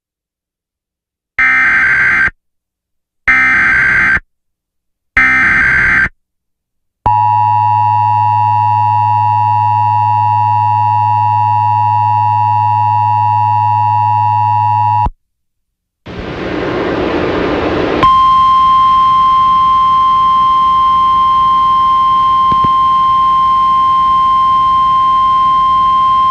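Emergency Alert System header: three short bursts of screeching digital data tones, then the EAS two-tone attention signal held steady for about eight seconds. After a brief gap and a rush of radio static, a single steady alarm tone, the NOAA Weather Radio warning tone, sounds over the static.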